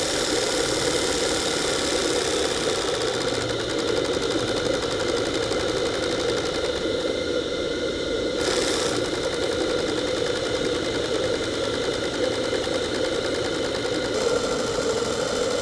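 Monahan Heron twin-cylinder, double-acting, slide-valve model steam engine running steadily on steam, with a fast, even mechanical beat from its cylinders, cranks and valve gear. The tone shifts a couple of times, and a brief rush of hiss comes about eight and a half seconds in.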